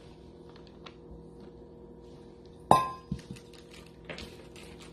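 A stainless steel bowl knocks once, about two and a half seconds in, with a sharp clank and a short metallic ring. A few lighter knocks follow, and faint ticks come before it.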